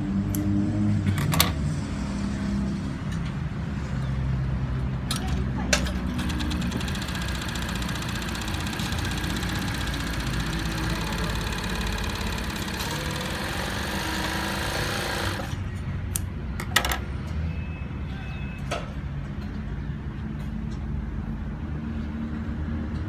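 Jack K4 five-thread industrial interlock sewing machine stitching fabric, running steadily at speed for about ten seconds from around six seconds in, then stopping. A few sharp clicks come before and after the run, over a steady low rumble.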